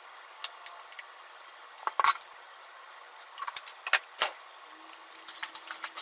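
Chopsticks and a plastic colander clicking and knocking against a dish as food is tipped out, a run of light sharp clicks and clinks. The loudest knocks come about two seconds in and around four seconds, with a quicker patter of small clicks near the end.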